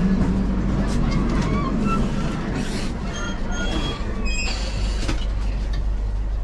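Inside an Indian Railways 3rd AC coach: the steady low rumble of the train, with several short high-pitched squeals between about one and five seconds in.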